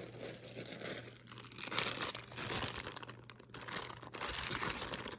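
Irregular crinkling and rustling of plastic packaging being handled while jewelry is sorted, over a faint steady low hum.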